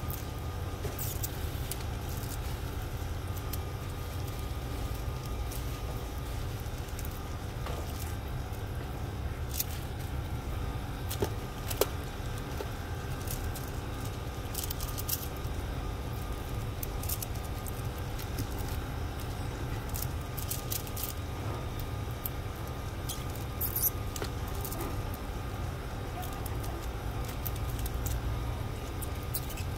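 Scattered small clicks and rustles of live prawns' shells and bamboo skewers being handled and pushed through, over a steady low machine hum. A few sharper clicks stand out, around the middle and again later on.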